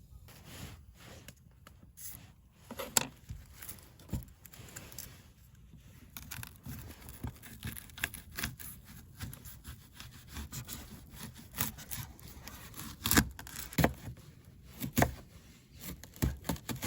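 Irregular clicks, light knocks and rustling of things being handled by hand, with sharper knocks about three seconds in and again near thirteen seconds.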